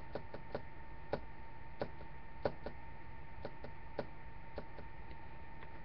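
Scattered, irregular clicks of a computer being worked at a desk, about a dozen in a few seconds, over a faint steady electrical hum.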